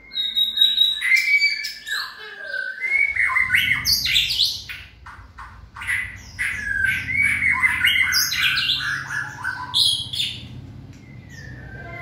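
White-rumped shamas singing a fast, varied run of whistled gliding phrases mixed with quick harsh chattering notes. The song dies down near the end.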